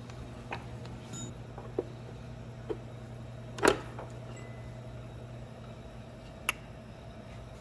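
Scattered light clicks and knocks of metal engine parts being handled during a connecting-rod bearing inspection, about five in all, the loudest about three and a half seconds in, over a steady low hum.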